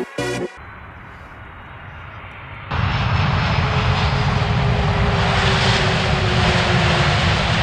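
Jet airliner on its landing approach, its engines heard faintly at first, then loud from a little under three seconds in, with a whine that slowly falls in pitch as it passes.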